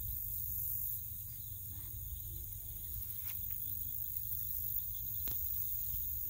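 Outdoor prairie ambience at dusk: wind rumbling on the microphone over a steady high-pitched chirring of insects, with two faint clicks.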